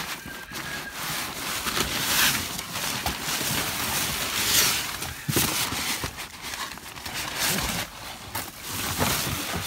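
Plastic trash bags, cardboard boxes and crumpled paper rustling and crinkling as hands rummage through them, with a few sharp knocks as boxes are shifted.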